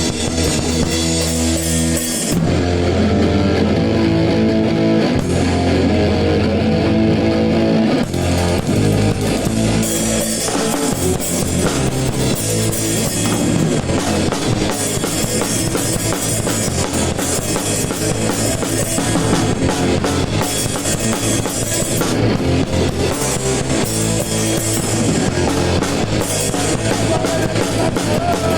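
Band playing a ska song, with a PDP Encore drum kit keeping the beat under electric guitar.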